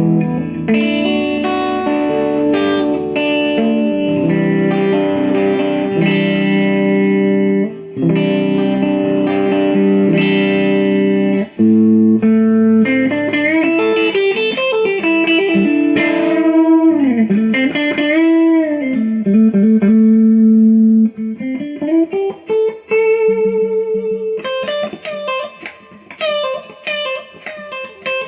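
Epiphone Dot ES-335 semi-hollow electric guitar on its middle pickup position, played through a Fender Blues Junior tube amp's clean channel. It holds ringing chords for about the first twelve seconds, then plays single-note lead lines with string bends, then short choppy notes near the end.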